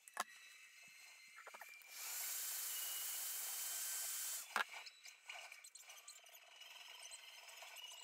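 A small handheld power tool runs for about two and a half seconds, starting about two seconds in with a brief rising whine and settling into a steady hissing whir, then cutting off. Sharp clicks and knocks of hand tools being handled come around it, the loudest just after the tool stops.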